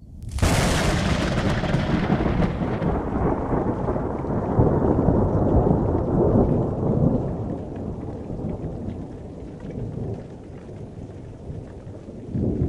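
A sudden thunderclap followed by a long rolling rumble that slowly fades, with a smaller swell of rumble near the end.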